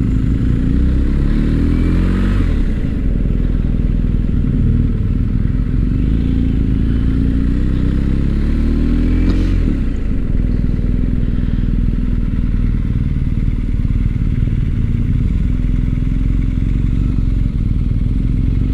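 BMW R1250 GS boxer-twin engine running under way, with wind and road noise. The engine's pitch rises twice, near the start and again about halfway through, as the bike accelerates.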